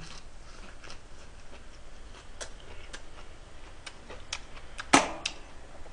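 Scattered small sharp clicks and taps at irregular intervals, with one louder knock about five seconds in.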